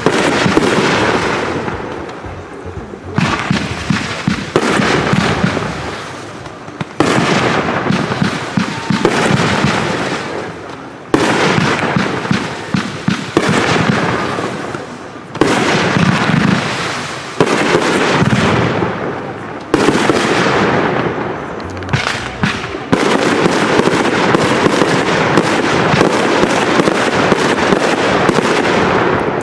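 Consumer fireworks going off in quick succession: dense crackling and popping, with a new volley starting every few seconds and a continuous barrage through the last several seconds.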